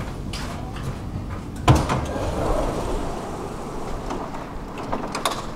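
Stockholm metro train's sliding doors opening, with one sharp clunk about two seconds in followed by a noisier stretch, over the steady background of the stopped train.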